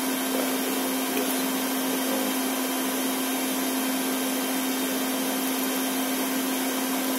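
Steady machine drone with a constant hum, unchanging throughout, from CNC workshop equipment running in the background.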